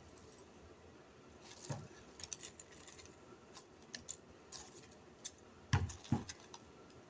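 Light clicks and taps of cut pieces of fried food being picked up and slid into a bowl on a plastic cutting board, with two soft knocks close together about six seconds in.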